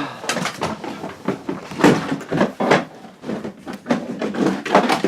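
Irregular knocks, bumps and rustling of things being handled and moved about, with no steady sound beneath.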